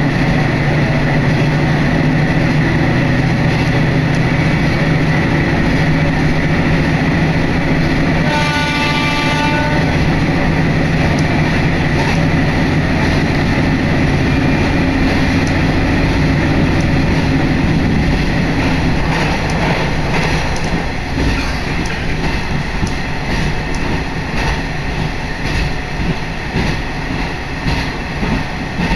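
Diesel railcar running at speed, heard from inside the car: a steady engine drone and wheel rumble, with one horn blast of about a second and a half some eight seconds in. Around twenty seconds in the engine drone drops away, leaving the rumble and clatter of the wheels on the rails.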